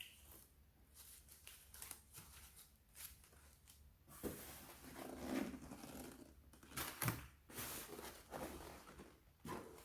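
Packing noises: irregular rustling and crinkling of wrapping material with short tearing sounds and a few sharp clicks, busiest from about four seconds in until near the end.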